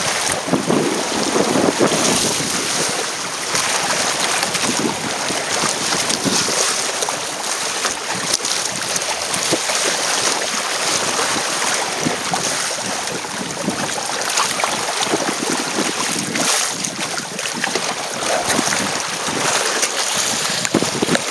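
Wind buffeting the microphone and choppy waves splashing and slapping against the hull of a Hobie Tandem Island sailing kayak under way in open water. The noise is dense and steady, with irregular surges as gusts and splashes hit.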